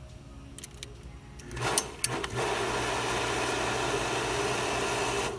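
A few clicks, then about a second and a half in a water well pump comes on under the newly fitted pressure switch: a steady hum with water rushing through the plumbing as pressure builds. It cuts off suddenly near the end.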